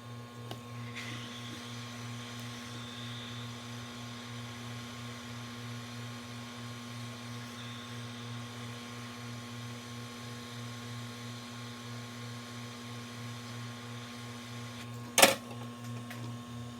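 Steady electrical hum of workbench equipment with a faint airy hiss that comes in about a second in, then a single sharp click near the end.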